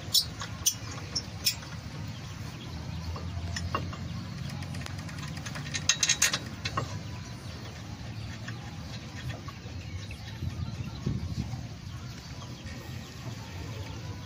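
Light metal clicks and taps as a steel brake caliper bracket is handled and fitted against a new brake disc: a few in the first couple of seconds, one near four seconds, and a quick cluster about six seconds in, over a steady low background rumble.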